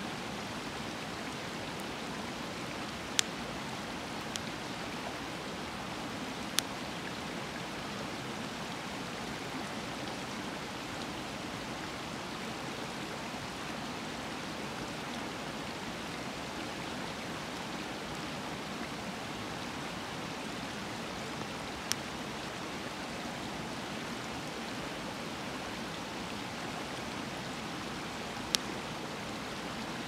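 A river running with a steady rush, and a wood campfire popping sharply about five times: three pops in the first seven seconds and two more near the end.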